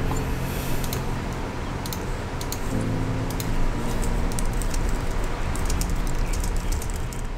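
Typing on a low-profile computer keyboard: a quick, irregular run of soft key clicks that thins out near the end.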